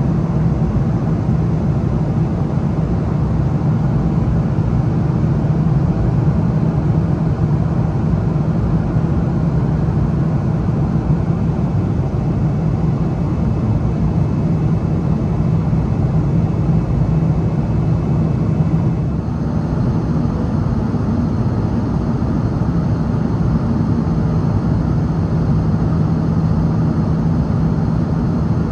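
Steady engine and airflow noise of a Boeing 777 heard from inside the cabin, a low, even drone. About two-thirds of the way through it drops a little in level and a faint high whine joins it.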